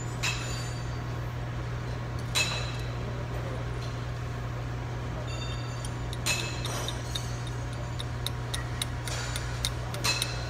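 Sharp metallic clinks and small ticks of a steel hand tool working on the end of a removed CV axle shaft, a few single clinks and then a run of about two light ticks a second near the end. A steady low hum runs underneath.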